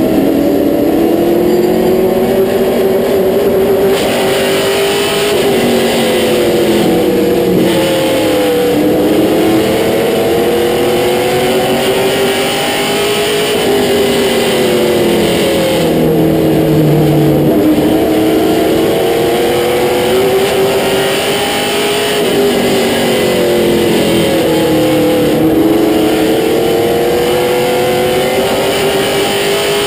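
Limited Late Model stock car's V8 engine at racing speed, heard from inside the cockpit. Its pitch rises and falls in long swells as the throttle goes on and off around the short oval.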